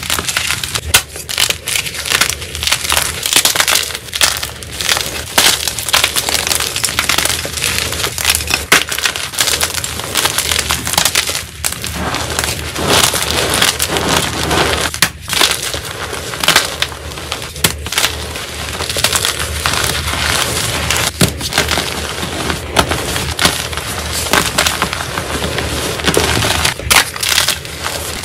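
Blocks of gym chalk, fresh white and blue-dyed, crushed and crumbled between the hands into powder: a dense, continuous run of crunching and crackling with frequent sharp snaps as pieces break apart.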